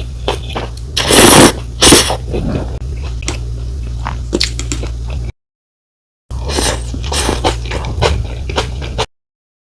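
Close-miked eating of rice noodle soup: loud slurps of noodles about one and two seconds in, then wet chewing and small mouth clicks over a steady low hum. The sound cuts to dead silence twice.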